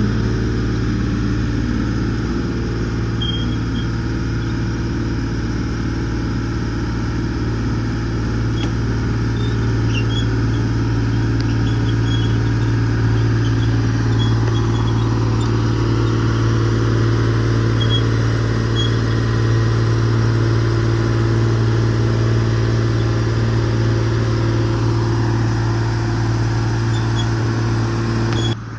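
Excavator's diesel engine running steadily at a constant speed, with a few faint short high chirps above it. The level drops suddenly near the end.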